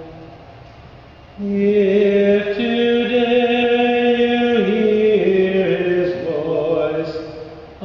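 Slow, wordless chanted melody: one voice holding long notes that step down in pitch, coming in strongly about a second and a half in.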